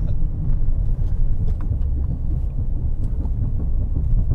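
Dodge Challenger R/T 392 with a six-speed manual rumbling unevenly in gear at very low speed off the throttle, with a few faint knocks as the car bucks and clunks. The owner puts the bucking down to something in the driveline that he cannot yet pin to a part.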